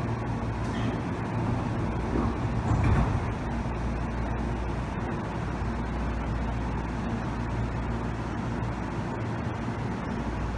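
Steady low mechanical hum of railway station ambience, with a brief louder rumble about three seconds in.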